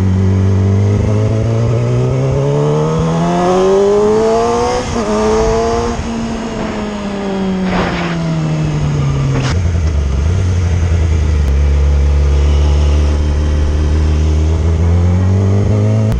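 Yamaha V Star 650's V-twin engine running, revved up slowly and let fall back over several seconds, then settling into a steady idle about ten seconds in.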